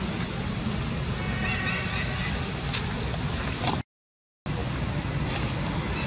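Steady outdoor background noise with a heavy low rumble, with a few faint chirps and clicks. It drops out to complete silence for about half a second a little past halfway.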